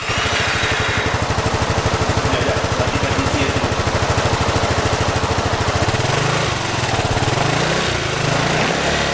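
Honda Forza 300 scooter's single-cylinder four-stroke engine idling through its stock muffler with a fast, even exhaust beat. About six seconds in the engine note rises briefly, then settles back.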